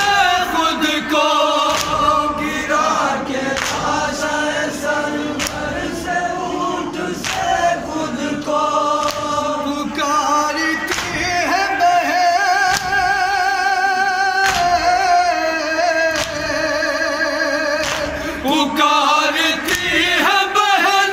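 A group of men chanting a noha, a Shia lament, a lead voice with others joining in, with vibrato on the held notes. Under it runs a steady beat of sharp slaps from hands beating chests (matam), a little faster than once a second.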